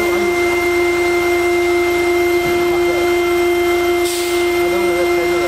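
High-speed spindle of a stone CNC router whining at a steady pitch as its tool cuts a stone slab under water coolant. A brief hiss comes about four seconds in.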